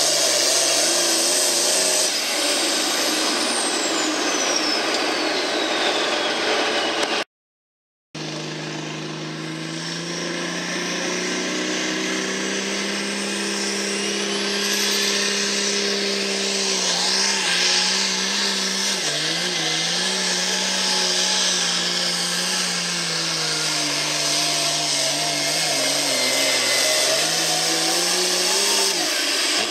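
Turbocharged diesel engines of hot-farm pulling tractors running at full throttle while dragging a weight sled, the engine note holding steady and then wavering up and down as the load builds. A high whine slides down in pitch in the first few seconds, and the sound cuts out briefly about seven seconds in.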